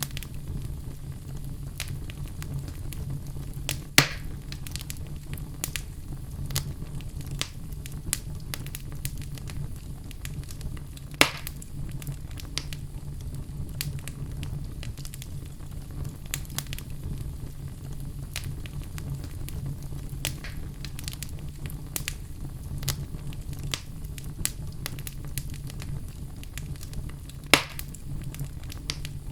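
Wood fire burning in a fireplace: a steady low rumble of flames with constant crackling, and three louder pops from the burning logs about 4, 11 and 27 seconds in.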